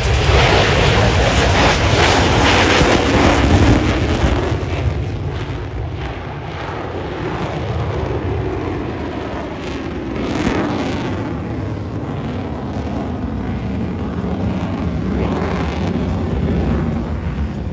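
F-22A Raptor's twin Pratt & Whitney F119 jet engines at maximum power on the takeoff run, a loud, continuous jet roar. It is loudest in the first few seconds, then eases slightly, with the tone sweeping as the jet passes.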